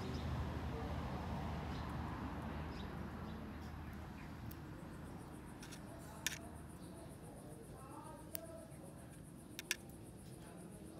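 Metal tweezers clicking sharply three times, tapping against a plastic cup as ticks are dropped in, over a low background rumble that fades away during the first few seconds, with a few faint squeaks.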